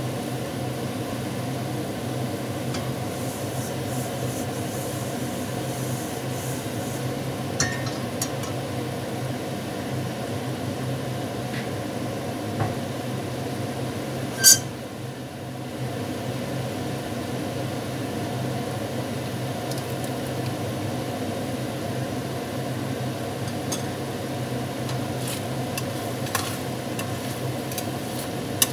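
Chicken pieces sizzling and simmering in sauce in a pan on a gas stove, over a steady low hum. A few sharp clinks of kitchenware, the loudest about halfway through, and a spatula clinking against the pan near the end as the chicken is stirred.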